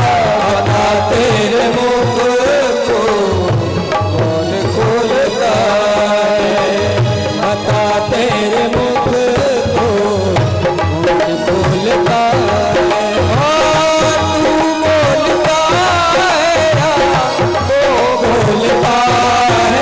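Instrumental passage of an Indian devotional song: a wavering, gliding melody line over a steady tabla rhythm.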